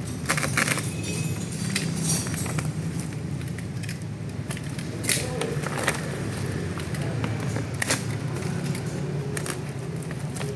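Scattered sharp clicks, crackles and rattles of packaging being handled and pulled apart, over a steady low hum.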